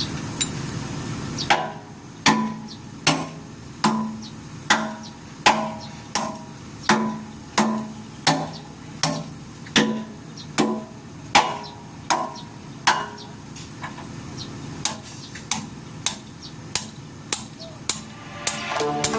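Hammer striking steel at an excavator bucket tooth, driving out the tooth's retaining pin. Steady blows come about one every three-quarters of a second, each with a short metallic ring, and grow lighter over the last few seconds.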